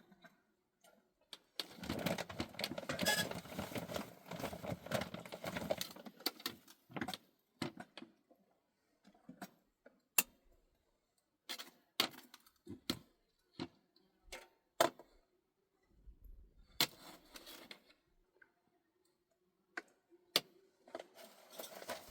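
Clattering and scattered sharp clicks and knocks of objects being handled, densest for a few seconds near the start, then single knocks spaced irregularly.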